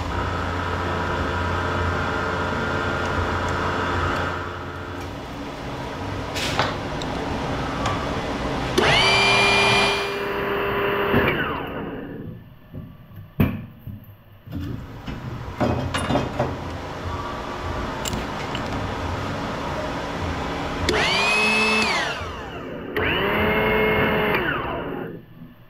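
A power tool's electric motor spins up to a steady whine and runs back down, three times: once about a third of the way in and twice near the end. Steady machine noise runs at the start, and there is a single sharp knock midway.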